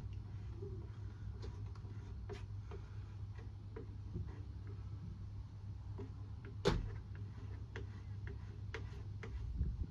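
Scattered light clicks and taps over a steady low hum, with one sharper, louder click about two-thirds of the way through.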